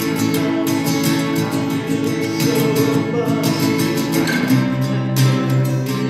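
Music led by a strummed acoustic guitar, with a steady rhythm of strokes over sustained chords.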